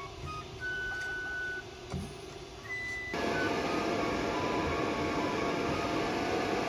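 Soft background music, then from about three seconds in a loud, steady rushing noise: the cooling fan of an EENOUR MIG120L inverter welder heard up close.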